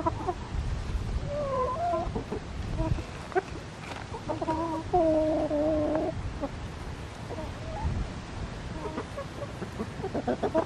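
Flock of backyard hens clucking as they peck around the camera, with a few short calls and one drawn-out call lasting over a second about halfway through.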